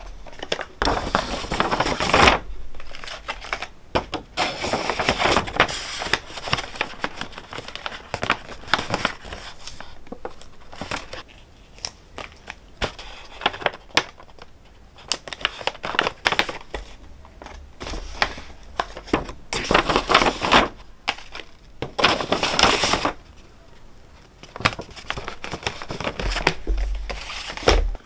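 White paper gift bags being handled and folded, the paper rustling and crinkling in irregular bursts.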